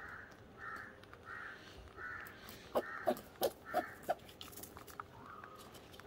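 Rabbits feeding at a tray of wheat seeds: a quick run of five or six short, sharp sounds just before the middle, the loudest part, with repeated harsh cawing calls about one every 0.7 s behind them.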